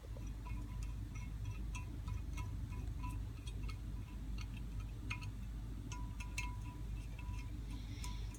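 Screwdriver tightening the fuel-cluster screws in a Rochester 2G carburetor body: scattered small metallic clicks and light ringing tones over a steady low hum.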